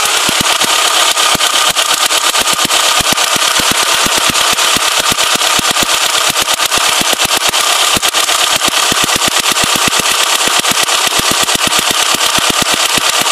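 1997 Honda Prelude's four-cylinder engine running with a rapid, even, loud ticking: the terrible ticking the owner heard right after an oil change, which he says makes it sound like a tractor.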